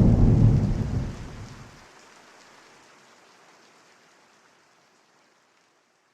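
A deep rumble with a steady hiss like thunder and rain, fading out at the end of the music. The rumble cuts off about two seconds in, and the hiss dies away soon after.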